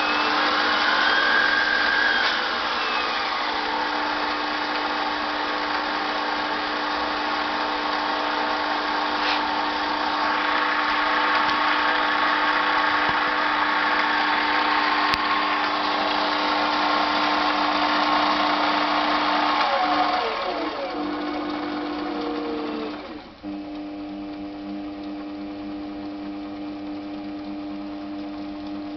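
Sieg C3 mini lathe running under its variable-speed motor with a steady whine. About 20 seconds in the pitch falls as it slows, and it runs on more quietly.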